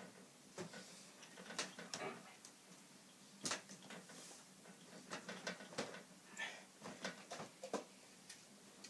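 Irregular light knocks and clicks, a dozen or so scattered unevenly, like small objects being handled.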